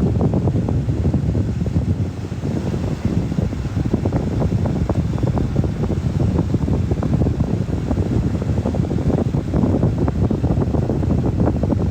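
Steady, loud wind rumble buffeting the microphone as the bamboo raft moves along the river, with a low drone underneath.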